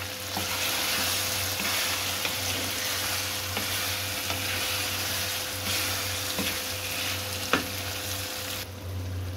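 Chicken and potato chunks sizzling as they fry in masala in a pot, with a spatula stirring them and scraping and knocking against the pot now and then. The sizzle drops away abruptly near the end.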